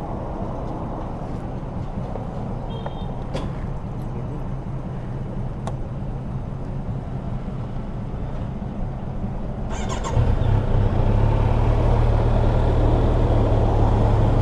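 Motor vehicle engine idling with a steady low hum and a few light clicks. About ten seconds in there is a short clatter, and then a louder engine runs steadily.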